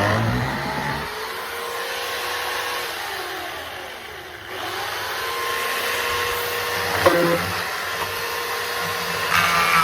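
Chainsaw running and being revved, its pitch holding steady then sliding down and up again, easing off briefly about four seconds in. A short sharp knock about seven seconds in.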